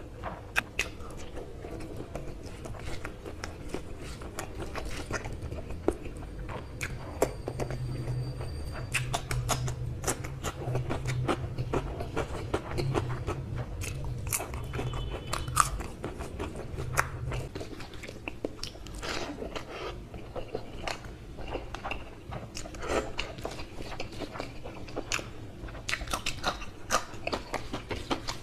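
Close-miked eating: a man chewing and biting mouthfuls of rice and curry eaten by hand, with crunches and many short sharp mouth clicks.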